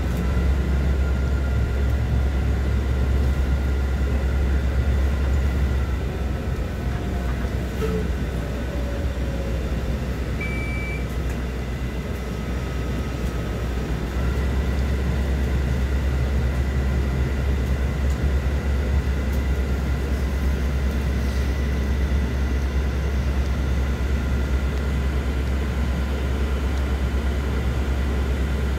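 Steady low rumble of a city bus in motion, heard from inside the cabin, with faint high whines over it. The rumble eases for several seconds and picks up again about halfway through.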